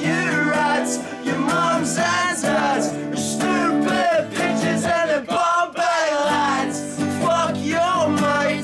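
Music: a song with a singing voice over guitar.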